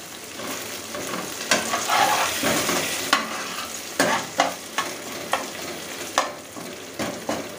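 Sliced onions, green chillies and curry leaves sizzling in hot oil in a kadhai while a ladle stirs them, with sharp scrapes and taps of the ladle against the pan about once a second. This is the onion stage of a dal fry tadka.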